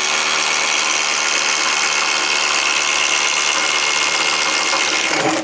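DeWalt DCF840 20V brushless cordless impact driver boring a 3/4-inch Speedbor spade bit into pressure-treated 4x4 lumber, its motor and hammer mechanism running hard and steadily under load. The tool stops abruptly at the end.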